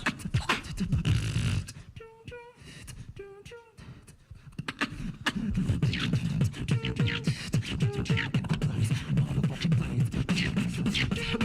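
Beatbox crew performing a live routine: deep vocal bass beats and sharp percussive clicks, with short sung melodic notes over them. About two seconds in, the beat drops out to a sparser stretch of pitched vocal notes, and the full beat comes back about two seconds later.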